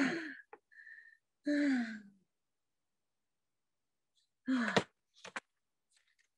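A person acting out a panic attack: wordless gasps and moaning sighs, three of them with pauses between, each falling in pitch, followed by a couple of short clicks.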